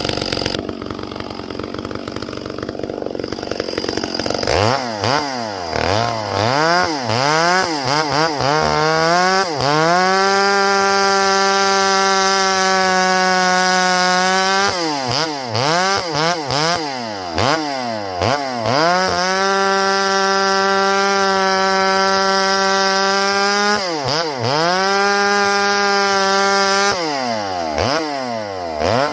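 Two-stroke chainsaw revved in quick blips, then held at full throttle for several seconds three times, cutting through a log. Each long run drops off suddenly, followed by more quick blips.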